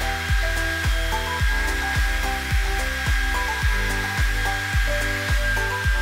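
Handheld hair dryer blowing steadily, a constant airy hiss with a thin high whine, under background music with a steady beat of about two hits a second.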